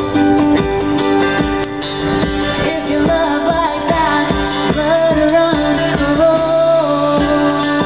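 A woman singing a melody over strummed acoustic guitars and a ukulele, the strums keeping an even beat.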